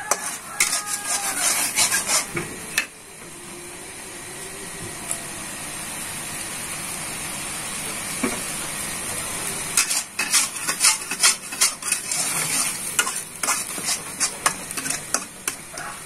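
Spatula scraping and tapping against a wok as red spice paste is stirred, sizzling in hot oil. The stirring stops about three seconds in, leaving a steady sizzle that slowly grows louder, and starts again about ten seconds in.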